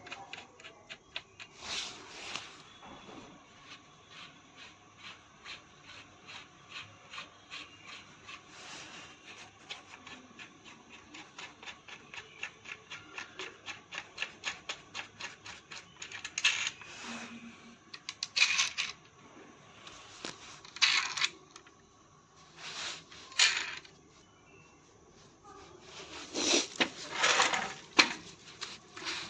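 Steady run of small clicks, about three a second, for roughly a dozen seconds, typical of a hand tool being worked during washing-machine reassembly; then several louder scrapes and knocks of parts being handled.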